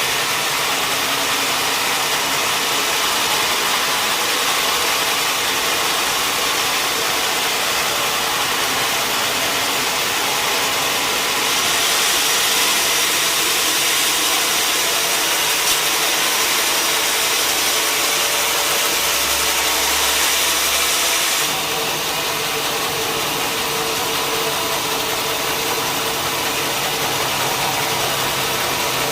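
Sawmill saw machinery running steadily during log sawing, a loud, dense mechanical noise. It turns louder and hissier from about twelve seconds in, then drops back about twenty-one seconds in.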